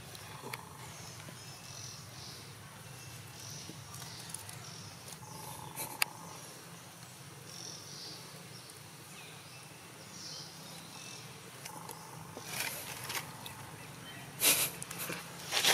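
Quiet outdoor ambience with insects chirping faintly on and off over a steady low background noise, and a single sharp click about six seconds in. Near the end come a few short, loud rustles and scuffs as baby macaques scramble and wrestle over rocks and dry leaves.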